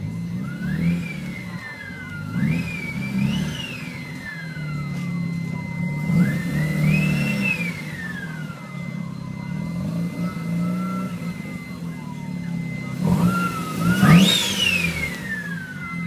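Mazda RX-7's turbocharged rotary engine rising and falling in revs several times, each quick climb trailed by a slow fall. A whine follows the revs up and down, and is loudest on the last rev near the end. A faint steady high tone runs underneath.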